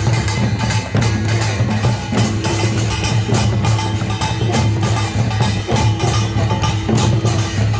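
Korean folk percussion ensemble (pungmul) playing a fast, driving rhythm of quick, closely spaced strikes over a steady low tone.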